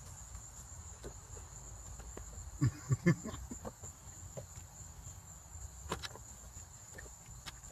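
Crickets chirring steadily at a high pitch, with a low background rumble. A few short, sharp knocks come close together about three seconds in, and another near the end.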